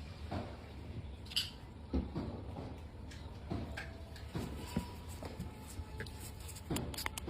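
Irregular light clicks and taps from small objects being handled, over a steady low hum.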